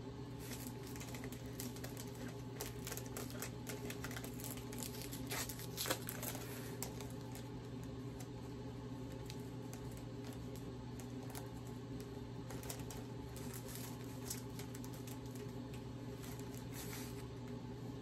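Comic book in a clear plastic sleeve being handled and turned over: faint crinkling and rustling of the plastic, in scattered bursts, over a steady low hum.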